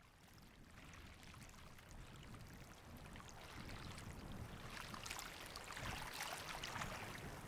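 Flowing river water, faint at first and growing steadily louder, with a fine crackling texture.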